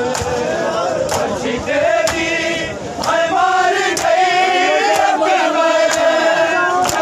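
A crowd of men chanting a Muharram lament together, the voices swelling louder about three seconds in, with a sharp slap about once a second from mourners beating their chests in matam.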